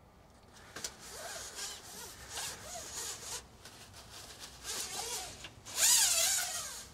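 Engine oil dipstick of a Cat 323 excavator being wiped with a paper towel and slid in and out of its tube, with rustling and scraping throughout. About six seconds in comes a louder scraping slide with a wavering squeak, the dipstick being drawn out for the reading.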